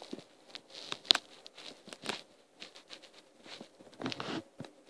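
A small Yorkie–Shih Tzu mix puppy chewing and worrying a toy on a wooden floor: faint, irregular clicks and scuffs of teeth and claws, with a sharper click about a second in and a short rustling spell near the end.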